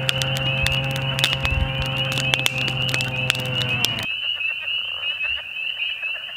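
Campfire wood crackling and popping over a dense chorus of frogs calling in rapid, high, repeated chirps, with a steady low hum underneath. About four seconds in, the crackling and hum cut off and the frog chorus continues alone.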